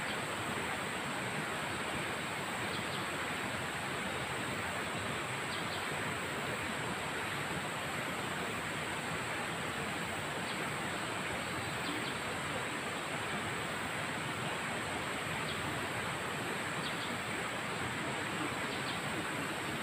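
Steady rushing of flowing river water, even throughout, with a few faint high chirps now and then.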